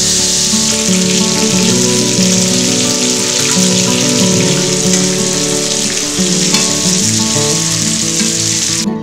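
Food sizzling as it fries in a frying pan, over acoustic guitar background music. The sizzle cuts off abruptly near the end.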